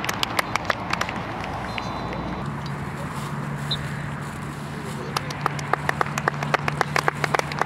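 Scattered handclaps, sparse early on and thicker again from about five seconds in, with faint voices in the background. A low steady hum starts about two and a half seconds in.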